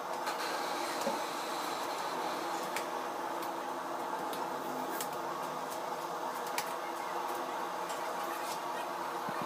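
A steady mechanical hum from a running motor, with a few sharp clicks and taps now and then.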